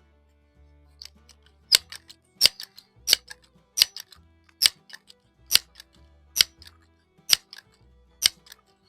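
Crosman 1322 multi-pump air rifle being pumped: about ten sharp clicks, one per pump stroke, the strokes slowing slightly as pressure builds. Background music plays underneath.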